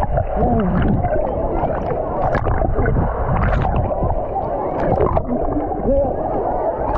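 Wave-pool water sloshing and gurgling around a GoPro in its waterproof housing, muffled as if half underwater, with indistinct voices of swimmers wavering through it.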